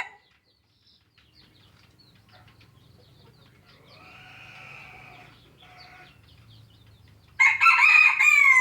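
Asil–Kelso cross rooster crowing once near the end: a loud, drawn-out crow lasting about a second and a half that falls in pitch as it ends. Before it, a quiet stretch with a faint, muffled bird call in the middle.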